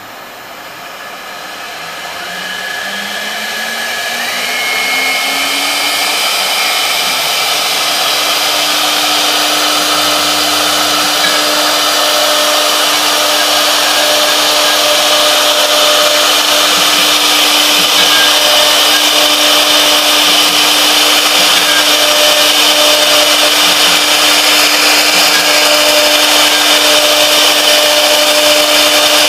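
Three-spindle CNC wood router's spindle spinning up with a rising whine over the first five or six seconds, then running at a steady high pitch as the bit cuts into a wooden board.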